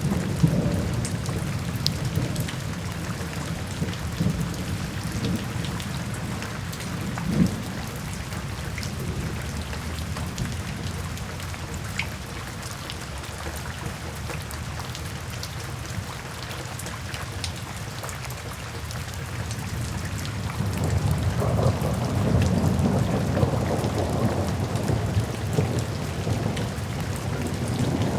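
Steady rain falling, with scattered drop ticks, over low rolling thunder; a deep thunder rumble swells about three quarters of the way through.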